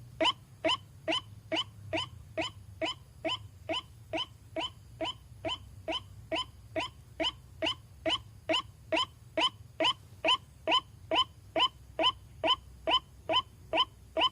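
White-breasted waterhen (ruak-ruak) calling: a long, evenly repeated string of short harsh notes, a little over two a second. They soften somewhat around the middle and then grow louder again. This is the call played as a lure to draw waterhens in.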